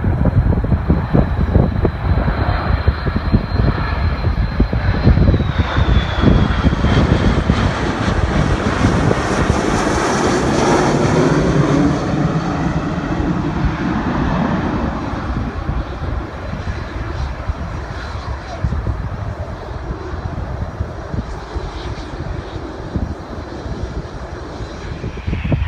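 Jet airliner passing close by. Its high engine whine drops in pitch about six seconds in, and the rushing jet noise swells to its fullest around ten seconds in, then slowly fades. Wind buffets the microphone throughout.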